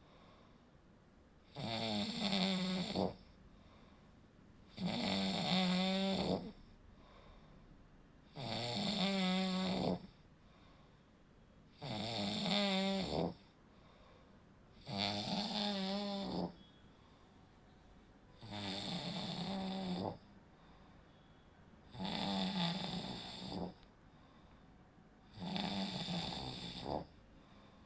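A person snoring steadily, with about eight snores at an even pace of one every three and a half seconds, each lasting about a second and a half. It is the throat's soft tissue vibrating as the airway is partly blocked during sleep.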